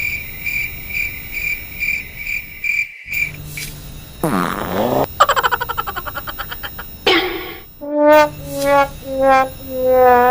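A string of short meme sound effects: high beeps about twice a second, a sweeping glide, and a fast rattling run of pulses that slows down. It ends with a sad trombone 'wah wah wah waaah', four notes stepping down, the last held long.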